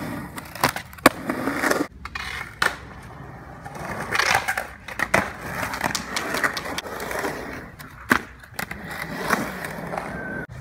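Skateboard wheels rolling on concrete ramps, broken by several sharp clacks of the board hitting the concrete.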